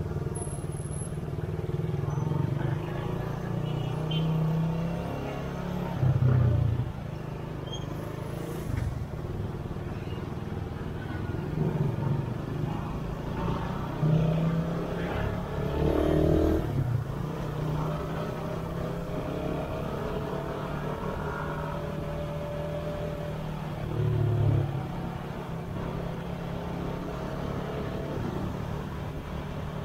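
Motorcycle engine running while riding along a road in traffic, with other motorbikes and vehicles passing close by. The engine note swells louder a few times, about six seconds in, around the middle and near the end.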